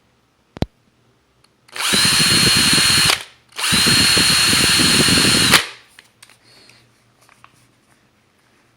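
Makita cordless drill run in two short bursts, about a second and a half and then two seconds, with a brief gap between them; each time the motor spins up quickly to a steady high whine and then stops. A single click comes just before the first run.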